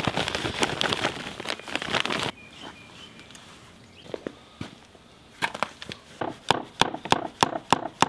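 Red casting sand poured from a plastic zip-top bag into a wooden mould box: a dense rushing, rustling noise that stops about two seconds in. In the second half, a run of sharp knocks, about four a second, from a hammer packing the sand around the buckle pattern.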